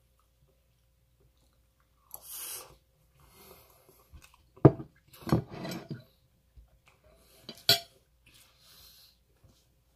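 Eating at a table: a metal fork clinking and scraping on a ceramic plate of rice, with chewing. There are a few sharp knocks, the loudest about halfway through and another near the end.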